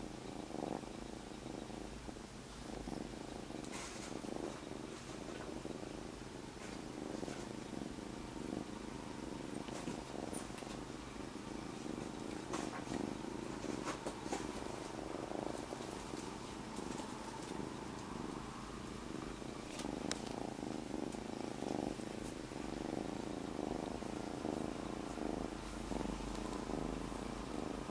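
Young black-and-white kitten purring steadily on a lap, with a few faint clicks along the way.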